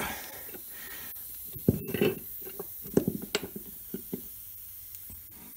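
Scattered small metal clicks and knocks from a brake master cylinder being handled and a bench vice being loosened to free it, over a faint hiss. The knocks come thickest a couple of seconds in.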